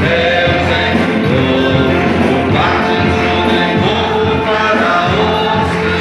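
Gospel song with a choir singing over instrumental accompaniment, playing steadily.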